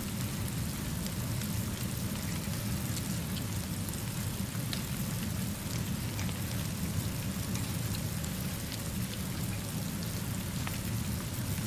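Steady rainfall with a low, even rumble underneath and scattered faint, sharp ticks.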